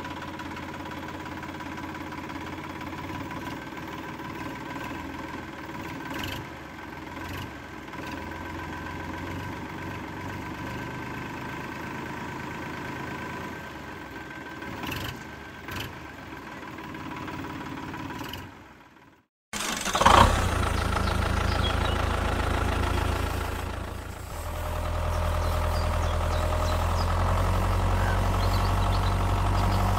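Tractor engine running steadily, with a few light clicks. After a short break about two-thirds of the way through, a louder, deeper engine drone takes over.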